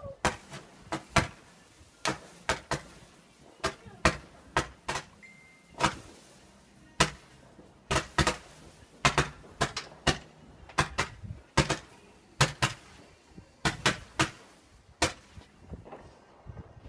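Fireworks going off: a long run of sharp bangs at irregular intervals, sometimes two or three close together, some with a short echo.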